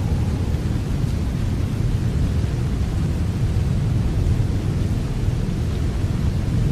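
Steady heavy rain: a dense, even hiss with a strong low rumble underneath.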